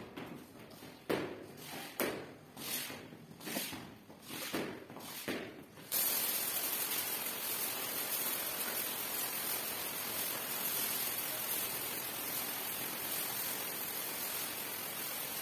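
Rubber floor squeegee scraping across wet ceramic tiles in a run of quick strokes. About six seconds in, a steady hiss of water spraying onto the tiles starts abruptly and holds.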